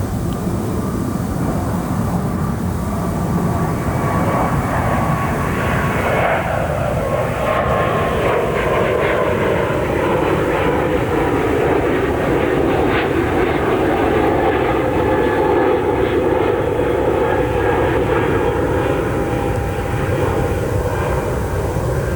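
Airliner passing low overhead: a loud, steady engine roar whose whine falls in pitch about six seconds in as the aircraft goes by.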